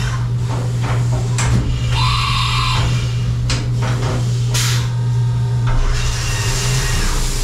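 CNC machining centre running with a steady hum while the spindle carrying a big end mill positions over an aluminum LS block. There is a brief whine about two seconds in, and short hisses and clicks through the middle. Near the end, coolant starts spraying with an even hiss.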